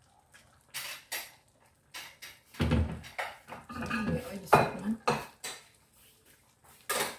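Metal ladle clinking against a frying pan and a glass serving dish as mung bean soup is ladled out: a series of sharp clinks spread over several seconds.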